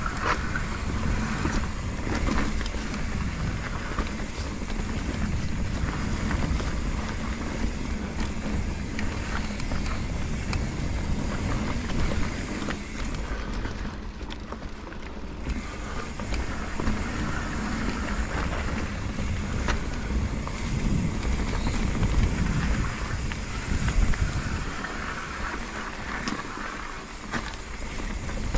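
Mountain bike riding down a dirt trail: wind buffeting a GoPro's microphone over a low rumble, with frequent short rattles and knocks from the bike over rough ground.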